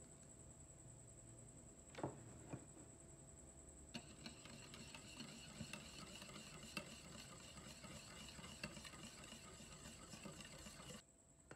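Wire whisk beating runny cookie batter in a glass bowl: fast scraping and ticking of the wires against the glass, starting about four seconds in and stopping abruptly near the end. Two light knocks come a couple of seconds before it.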